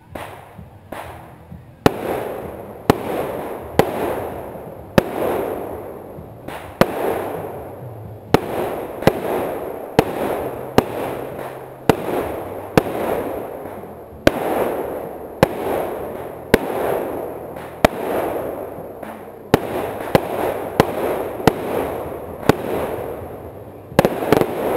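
Fireworks going off in a steady string of launches, roughly one a second, some coming in quick pairs. Each launch is a sharp pop followed by a hissing tail that fades over about a second.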